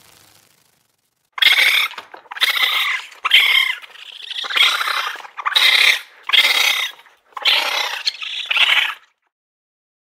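Raccoon dog giving a run of about eight short raspy calls, roughly one a second.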